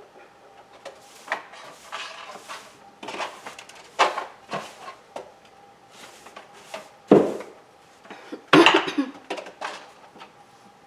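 Irregular scraping, rubbing and clattering from cleaning work under a refrigerator. Two louder knocks come about seven and eight and a half seconds in.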